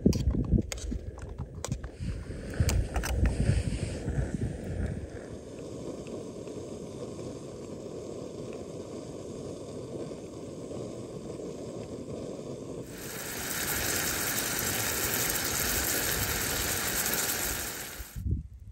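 Metal clinks and scrapes of utensils on camping cookware over a low wind rumble on the microphone. Later a loud, steady hiss lasts about five seconds and cuts off abruptly.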